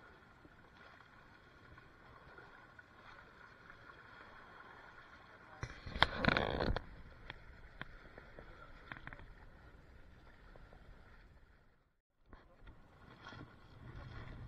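Outdoor ambience on a bamboo fishing raft at sea: faint voices of the fishermen over water movement, with a sudden loud rush of noise under a second long about six seconds in.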